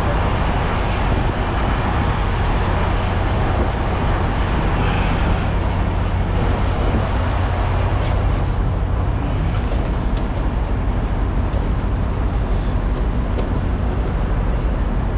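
Semi-truck diesel engine idling: a steady low rumble, with a few faint ticks between about eight and thirteen seconds in.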